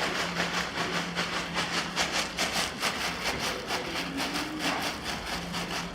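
Hand-made foley footsteps: a quick, even series of scuffing strokes, about four a second, acting out someone running.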